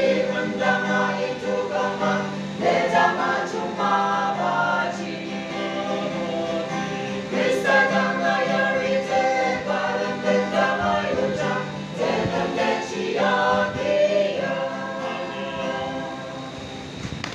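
Small mixed group of men and women singing a gospel hymn together.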